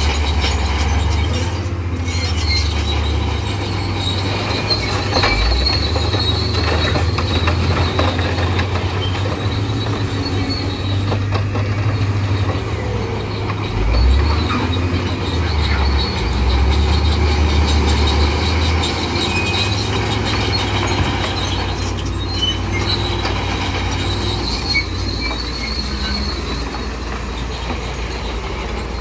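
Bulldozer working: deep diesel engine rumble that swells and eases every few seconds under load, with squealing and clanking from its steel tracks.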